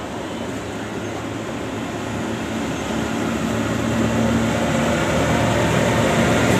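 WAP-7 electric locomotive approaching on the adjacent track, its running noise of wheels on rail and a low steady hum growing steadily louder as it nears.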